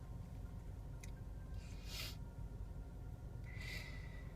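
A person breathing softly between sneezes: two quiet breaths, one about two seconds in and one near the end, over a low steady hum.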